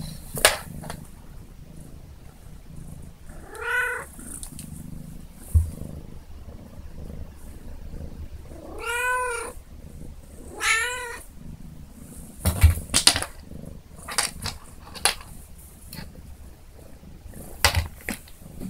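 Kitten purring steadily, with three meows: one about four seconds in and two close together around the middle. Scattered knocks and thuds, most of them in the last third, as its body hits the floor and wall while it rolls about in its harness.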